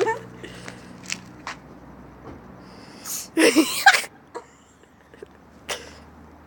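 A woman in a sneezing fit: one loud sneeze a little past halfway, then a shorter sharp burst near the end.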